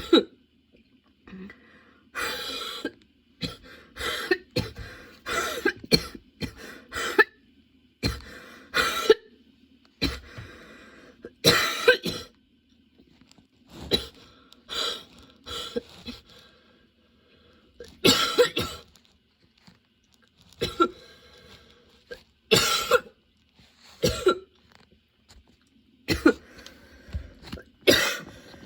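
A woman coughing over and over in a long coughing fit, the coughs coming singly and in quick runs of two or three, with short pauses between.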